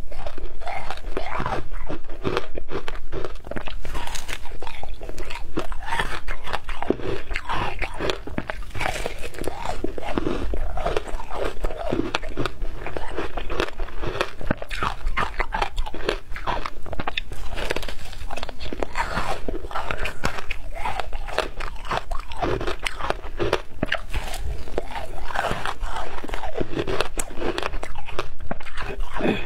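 Frozen shaved ice glazed with passion fruit pulp being bitten and chewed, a dense run of sharp crunches, several a second.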